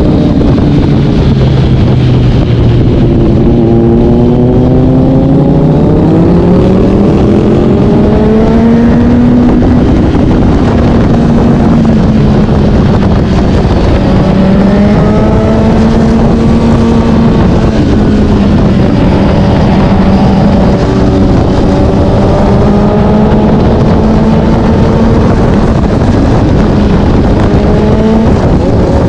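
Kawasaki Z900's inline-four engine through an SC-Project S1 exhaust, heard from the bike while riding. The engine note climbs and falls several times as the throttle is opened and eased, with a steady low rumble of wind underneath.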